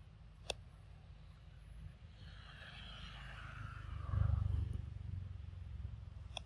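A vehicle going by: a low rumble and road hiss that swell to a peak about four seconds in, then fade. There is one sharp click about half a second in.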